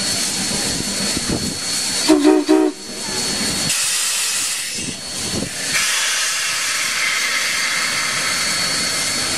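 Steam locomotive standing with steam hissing steadily. About two seconds in, its steam whistle gives three short toots, and after that the hiss of escaping steam grows brighter and louder, in a burst about four seconds in and again from about six seconds in.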